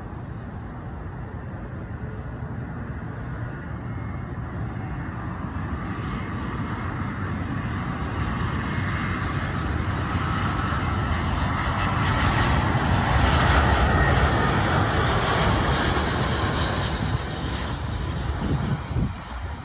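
Twin-engine jet airliner on final approach with landing gear down, passing low. Its engine noise builds steadily, is loudest about two-thirds of the way in with a high hissing whine on top, then eases off.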